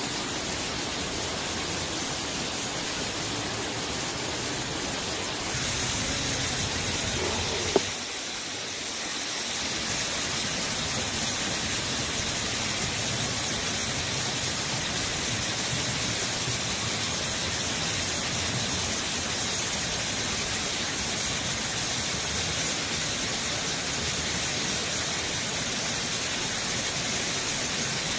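Steady rushing of a waterfall spilling over rocks into a pool, with one sharp click a little under eight seconds in.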